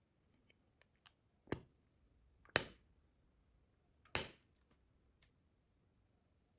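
Three sharp plastic clicks, the second and third the loudest, with a few faint ticks between, from handling a mini handheld folding spray fan; the fan's motor is not running.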